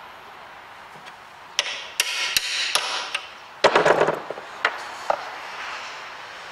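Metal clinks and knocks of a steel socket and hand tools being handled at a bench vise: a few sharp clicks, a scraping stretch, then a rattling clatter of knocks about three and a half seconds in as the socket is set down on the bench, and a couple of single clicks after.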